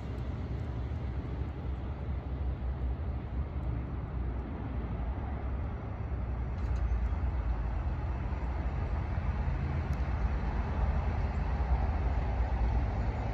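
Amtrak passenger train pulling away, its rumble fading to a low, steady noise, with wind buffeting the microphone.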